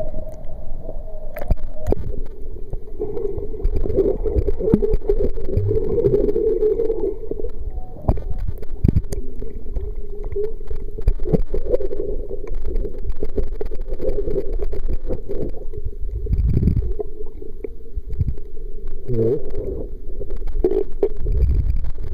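Water heard through the microphone of a waterproof Kodak Playsport Z5 camera held at and below the surface: a muffled, low rumbling and gurgling of water moving against the camera, with a few sharp knocks.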